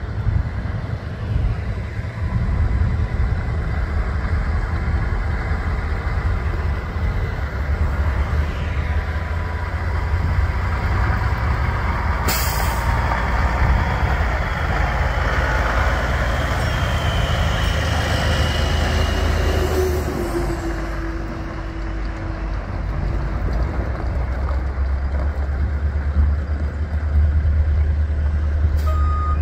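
2001 Kenworth T800 day cab tractor's diesel engine running as the truck drives slowly across the yard, with a short sharp air-brake hiss about twelve seconds in.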